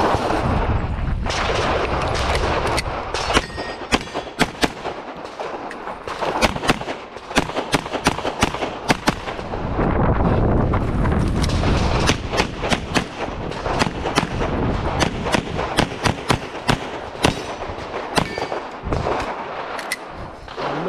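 Pistol fired rapidly in practical shooting: dozens of sharp shots in quick pairs and strings, with short breaks between the strings.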